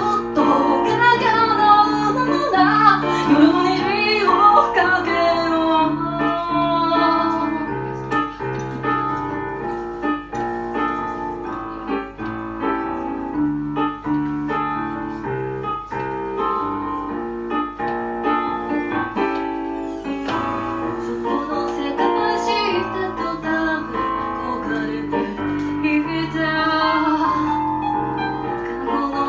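Song with a female voice singing over piano or keyboard accompaniment; the voice wavers and glides in the first few seconds, and the held accompaniment chords carry on through the rest.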